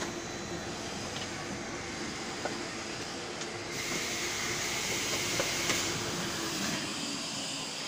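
Steady running noise inside a moving bus, with a louder hiss that comes in about four seconds in.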